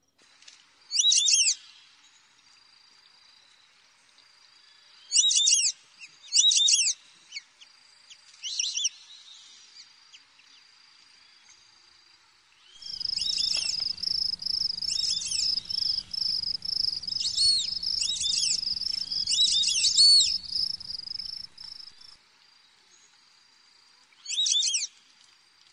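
High-pitched calls of small night animals: short arched chirps, singly or in pairs, about 1, 5, 6.5, 9 and 24.5 seconds in. From about 13 to 21 seconds a dense run of these chirps sounds over a steady high whine, with a low rumble beneath.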